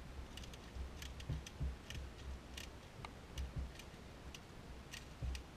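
Faint, scattered sharp clicks and ticks at irregular intervals over a low rumble.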